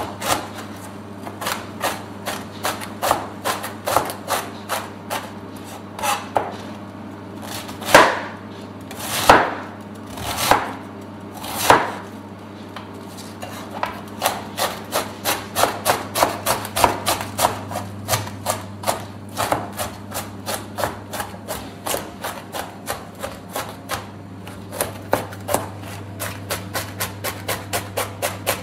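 Chef's knife chopping cabbage finely on a plastic cutting board: quick repeated chops, about two or three a second, with a few louder, longer strokes about a third of the way in. A faint steady low hum lies underneath.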